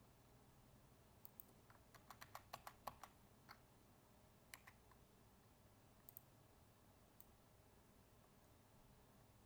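Faint computer keyboard clicks: a quick run of a dozen or so key presses between one and three seconds in, then a few scattered single clicks.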